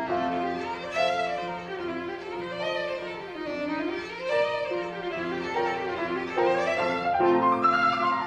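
Violin playing a classical piece with piano accompaniment: held notes broken by quick runs that climb and fall, with a long climbing run near the end.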